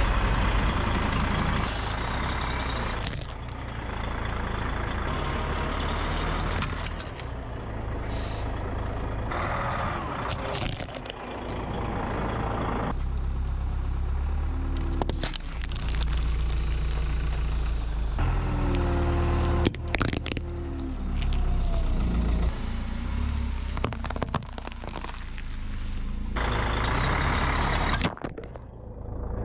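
Vehicle tyres slowly rolling over and crushing objects, such as a mobile phone and a drink can, over the steady low rumble of an idling engine: a run of short clips with crunches and sharp cracks of plastic and metal giving way, the loudest crack about two-thirds of the way through.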